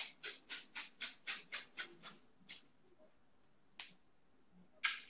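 Hands working a strip of adhesive athletic tape onto an ankle: a quick run of short rasping strokes, about four a second, for two and a half seconds, then two single rasps near the end.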